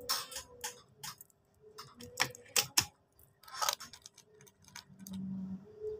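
Irregular sharp clicks and light knocks, about a dozen spread unevenly, from an airgun being handled between shots, with a short low hum near the end.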